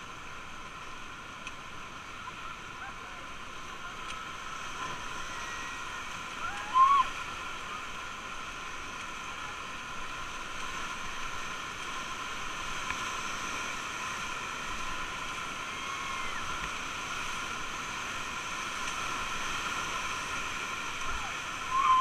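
Steady rush of river whitewater rapids heard from a raft, growing slowly louder as it runs through them. A brief loud voice cuts in about seven seconds in.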